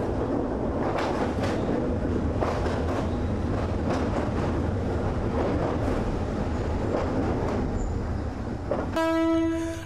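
Train running along the track: a steady low rumble with irregular clicks of the wheels over the rails. Near the end a steady pitched tone sounds for about a second.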